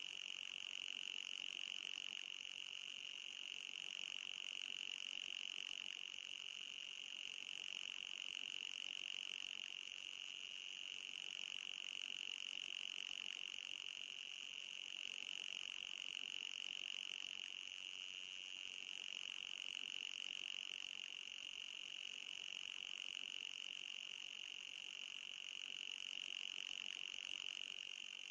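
Anti-mosquito repeller sound effect: a steady, high-pitched electronic buzz with a fainter, higher band above it, swelling and easing slightly every few seconds.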